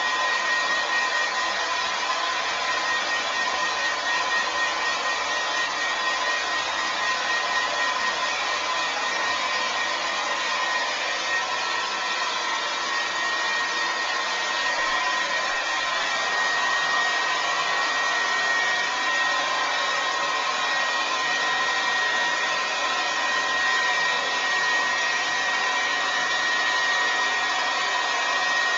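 Remington Shine hair dryer running steadily: a continuous blowing hiss with a steady whine through it.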